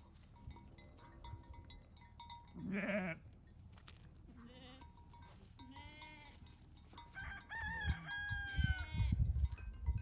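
Sheep bleating: a wavering bleat about three seconds in, then more pitched calls, one of them long and held near the end. Near the end a sheep noses right up against the microphone, giving loud low bumps and rubbing.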